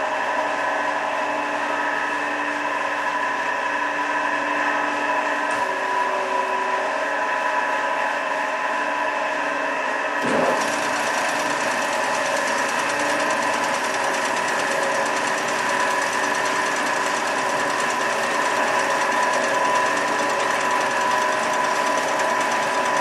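Amada HA250W hydraulic horizontal band saw running, its blade and 5 HP drive giving a steady machine hum with several held tones. A brief knock sounds about ten seconds in.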